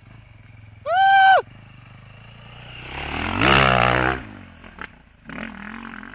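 KTM off-road motorcycle engine revving up on a hill climb, swelling to its loudest about three and a half seconds in and then falling away, over a low steady engine rumble. A short, high-pitched call rings out about a second in.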